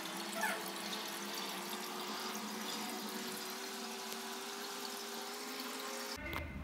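Aquarium water bubbling and splashing steadily from air bubbles rising through the tank, with a faint steady hum under it. The sound stops abruptly near the end.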